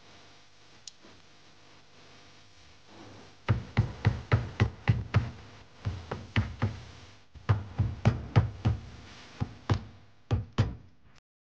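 Hammer blows on a hand tool held against a motorcycle engine's aluminium crankcase: about twenty sharp taps in four quick runs, starting about three and a half seconds in.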